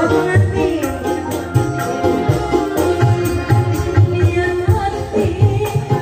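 Loud amplified live band music with a quick, steady hand-drum beat, and a woman singing into a microphone.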